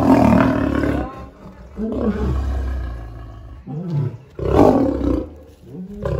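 Male lion growling and snarling in several short bursts over a low rumble as it bites a man's hand through a chain-link fence, the loudest burst about three-quarters of the way through.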